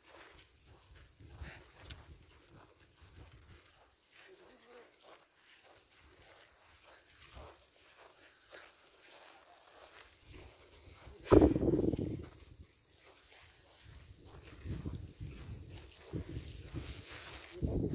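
Steady high-pitched insect chirring over footsteps on dry, stubbly ground, with a brief loud low thump about eleven seconds in.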